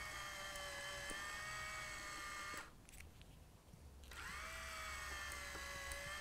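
MTB MP10 stall-motor point motor whining faintly as it drives the Peco point's blades across. It runs, stops about two and a half seconds in, then starts again a second and a half later, its pitch rising briefly at the start, throwing the point back the other way.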